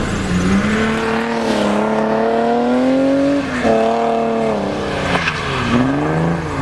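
Car engine revving hard through a drift. Its pitch climbs steadily, drops sharply about three and a half seconds in, climbs again, then dips and rises once more near the end.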